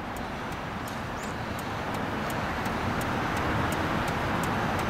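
Motor vehicle traffic noise: a steady, even rush that grows gradually louder, as of a vehicle approaching.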